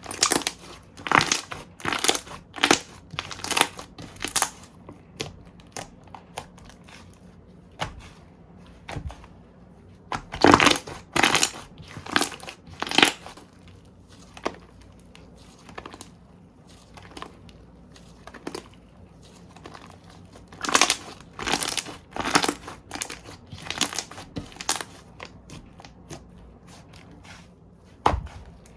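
Slime being pressed and squeezed by hand, giving runs of sharp crackling pops, several a second, in bunches with short pauses between. The loudest come around ten to thirteen seconds in and again around twenty-one seconds in.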